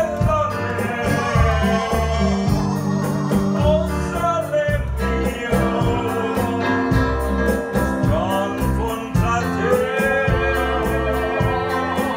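Live band playing a song on electric guitar, bass and keyboard over a steady drum beat, with voices singing into microphones.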